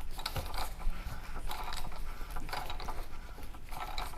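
Ratchet socket wrench clicking in short runs as it is swung back and forth to tighten the oil filter cap on a Jeep Wrangler's 3.6L Pentastar V6.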